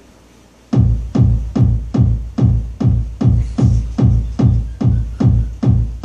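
Quiet room tone, then about a second in a steady electronic kick-drum beat starts, about two and a half beats a second: the opening beat of a song's backing track.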